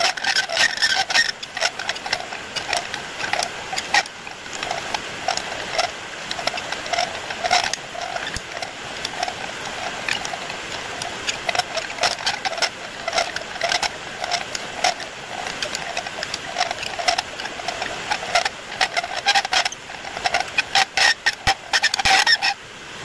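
A cutting tool turning down a rotating steel vise-screw blank on an improvised lathe: steady metal-on-metal cutting with a rhythmic rasp about twice a second, and bursts of sharp clicks near the start and again near the end.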